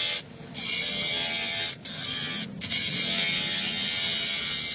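Small handheld electric power tool running with a steady high buzz, cutting out briefly three times.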